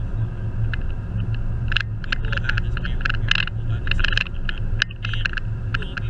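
Steady engine and road rumble heard inside the cabin of a moving SUV, with many irregular light clicks and rattles over it.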